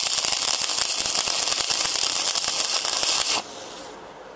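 Stick-welding arc from a 3.2 mm rutile electrode burning at 125 A on an inverter welder: a steady, loud crackling hiss that cuts off suddenly about three and a half seconds in as the arc is broken.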